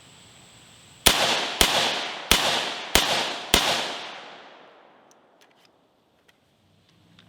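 AR-15 rifle firing five quick shots, one every half second or so, each with a ringing echo that fades after the last. The rifle is cycling normally with its gas rings as assembled, before any are lined up.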